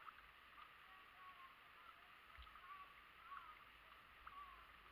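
Near silence: faint outdoor ambience with a few faint short chirps.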